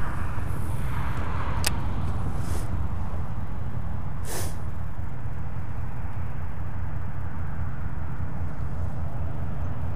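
Steady low rumble of wind buffeting a body-worn camera's microphone, with a sharp click about one and a half seconds in and a short hiss about four seconds in while a baitcasting rod is cast.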